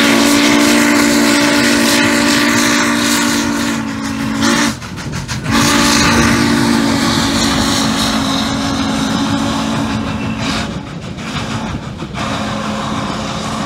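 Norfolk and Western 611's steam whistle blowing a long blast, a short break just before five seconds in, then a second long blast, over the rumble of the passing train. About ten seconds in it gives way to a fainter, slightly lower tone.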